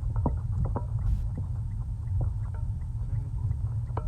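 Car driving, heard from inside the cabin: a steady low rumble of engine and road noise, with a few faint, irregular clicks.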